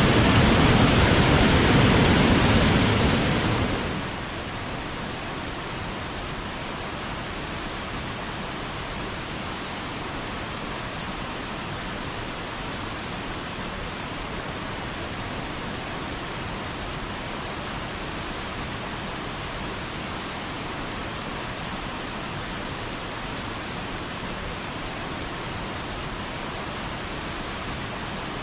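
Rushing water of a mountain waterfall: a steady roar, loud and full for the first few seconds, then dropping abruptly about four seconds in to a quieter, duller steady rush.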